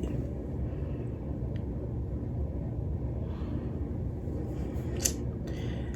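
Steady low background rumble, with a faint tick about one and a half seconds in and a short hiss about five seconds in.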